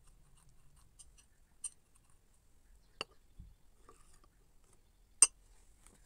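Ceramic spoon clinking against a ceramic cup and saucer: a few separate sharp clicks, the loudest about five seconds in.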